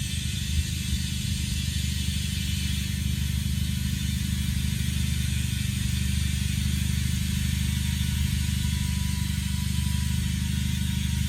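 Air compressor running steadily, a low hum with a hiss of air over it as tires are aired up.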